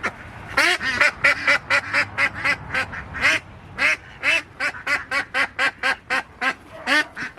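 Domestic ducks quacking loudly and continuously, a rapid run of short quacks at about three a second.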